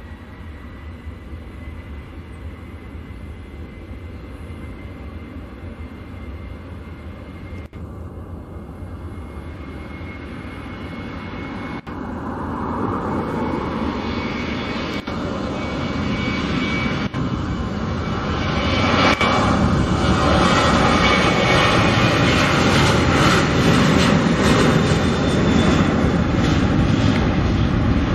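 Boeing 737-800's CFM56-7B turbofan engines on the takeoff roll: at first a steady fan whine over a low hum, then a jet roar that builds in two steps and is loudest over the last third.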